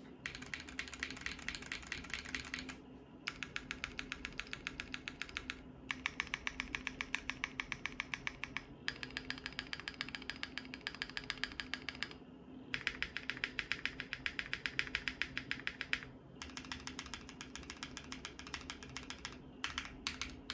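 Bakeneko60 mechanical keyboard with lubed Zaku tactile switches on an FR4 plate being typed on in quick runs of keystrokes. Each run lasts about three seconds, with short pauses between, and a few separate taps come near the end.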